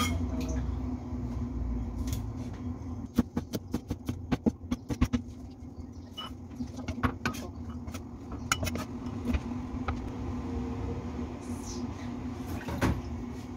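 Cleaver chopping long beans on a wooden cutting board: a quick run of sharp knocks, about five a second, from about three to five seconds in, then a few scattered knocks. A steady low hum runs underneath.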